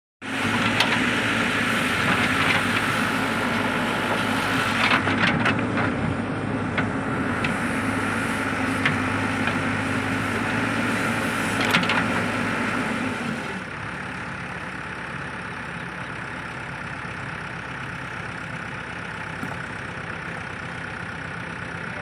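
Heavy vehicle engine running steadily, with scattered clicks and knocks, then dropping to a lower, quieter idle about 13 seconds in.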